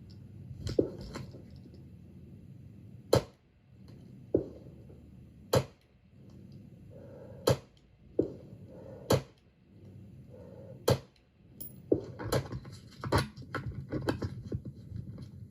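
Gunshots on a shooting range: about a dozen sharp reports at irregular intervals, mostly a second or two apart, coming faster near the end.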